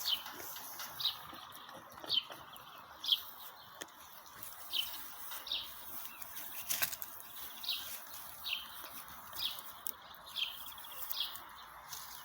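A bird repeating a short, high chirp about once a second, over a faint steady outdoor hiss.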